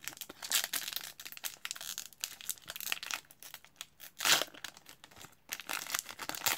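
A 2021-22 Upper Deck Tim Hortons Team Canada hockey card pack's wrapper crinkling in the hands as it is torn open, with a louder rip a little past four seconds in.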